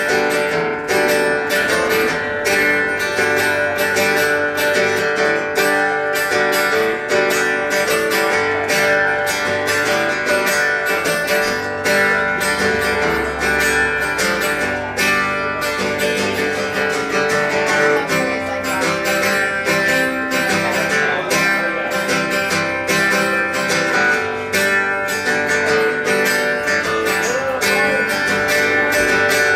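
A band playing an instrumental passage with no singing, led by guitar, with busy picking and strumming that does not pause.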